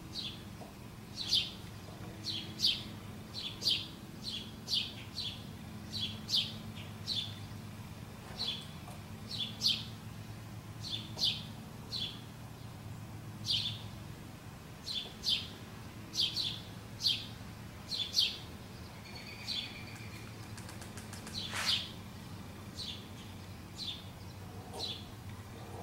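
Small bird chirping repeatedly in short, sharp notes, about one or two a second, over a steady low hum, with a single sharp click near the end.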